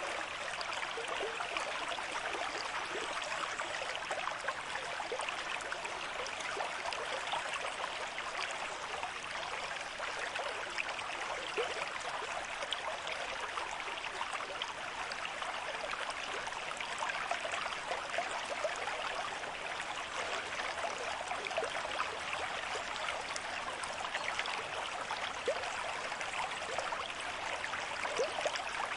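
River stream with moderate flow, running steadily with a continuous rush of water full of small splashes and gurgles.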